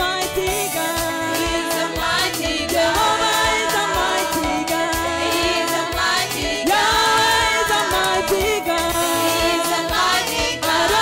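Gospel praise music: a group of voices singing together over instrumental backing with a steady beat.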